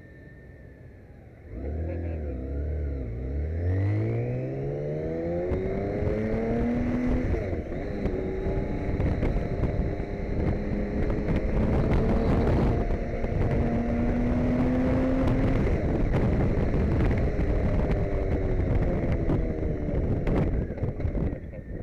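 BMW K1600GT police motorcycle's inline-six engine picking up about a second and a half in and accelerating, its pitch rising through several gear changes. It then runs at a steady speed with wind noise, easing off near the end.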